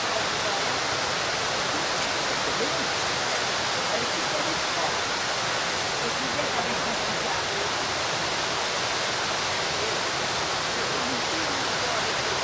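The Vigeland Fountain's water spilling from its raised bowl and splashing down into the basin, a steady rushing that does not change.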